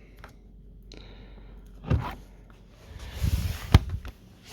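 Handling noises from plastic fridge home-bar door parts as the door damper is worked free: a knock about two seconds in, then a scraping rustle with a sharp click near the end.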